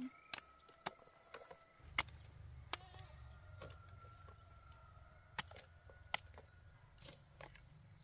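A knife or machete chopping cassava: sharp single chops at uneven intervals, about eight in all.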